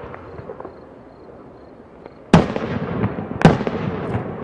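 Aerial fireworks shells bursting: two loud booms about a second apart, a little past halfway, each followed by a trailing rumble.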